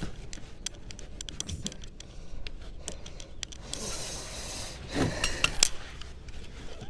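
Hands working and rubbing repair tape into a gutter, with scattered clicks and scrapes, a brief hiss about four seconds in, and a louder burst of scraping and clicks about a second later.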